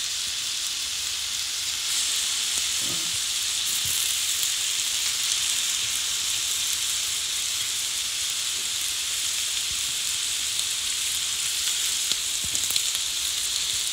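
Raw chicken pieces sizzling in a frying pan with no oil added, cooking in their own fat: a steady hiss that grows a little louder about two seconds in, with a few small pops near the end.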